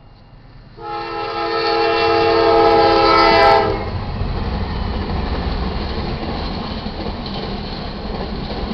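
Air horn of a GE Dash 9-40CW diesel locomotive sounding one long blast close by, starting about a second in and cutting off sharply about three seconds later. The locomotives and then the autorack cars then rumble past, with their wheels clattering over the rails.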